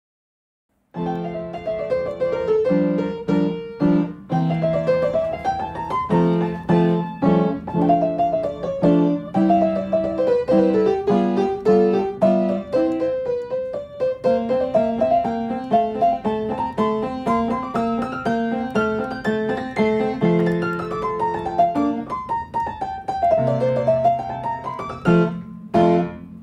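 Piano music: runs of notes climbing and falling over repeated low chords. It starts about a second in and stops near the end.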